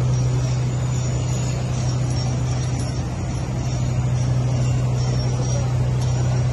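A steady low mechanical hum with a constant hiss over it.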